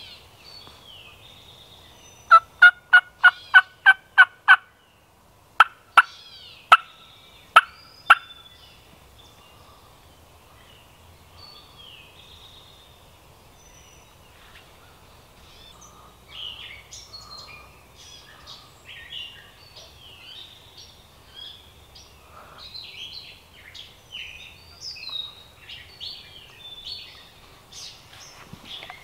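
Turkey yelping, loud and close: a quick run of about eight yelps, then about five more spaced further apart. Small songbirds chirp through the second half.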